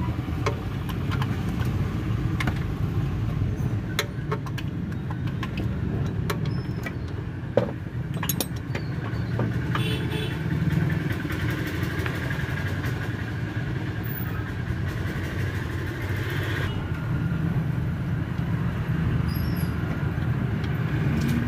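A steady low rumble of vehicle noise, with scattered sharp clicks and metal taps as the oil sump drain plug is worked loose with a ratchet wrench and turned out by hand.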